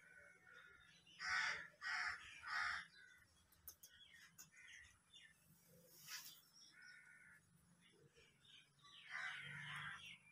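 Bird calling: three loud, harsh calls in quick succession about a second in, followed by scattered faint chirps.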